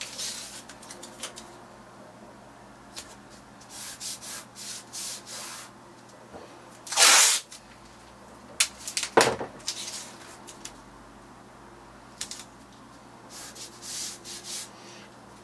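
Scotch masking tape pulled off its roll in short, noisy rasps, the loudest about halfway through, and strips of tape rubbed down with the fingers onto a card mount and paper print.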